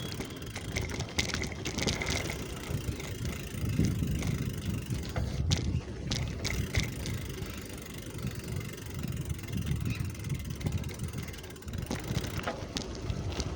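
Riding noise from a bicycle: a fluctuating low rumble of wind on the microphone and tyres on the road, with a couple of short clicks about halfway through.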